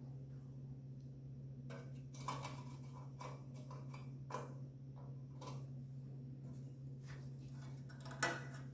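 A toddler banging a utensil: a string of irregular taps and clicks starting about two seconds in, the loudest near the end, over a steady low hum.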